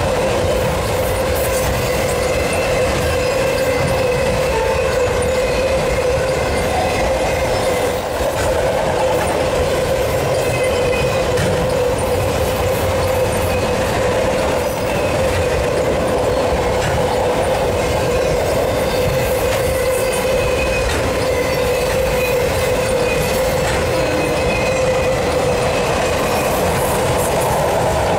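Freight train of autorack cars rolling past: steady rumble of steel wheels on the rails with a continuous hum, and a high wheel squeal that comes and goes several times.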